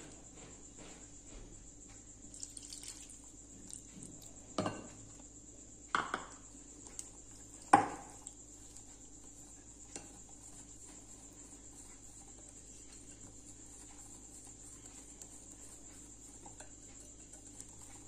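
Wire whisk stirring a gram flour and melted ghee batter in a glass mixing bowl, its metal wires clinking against the glass a handful of times in the first eight seconds, the loudest clink about eight seconds in. A faint steady hiss lies underneath.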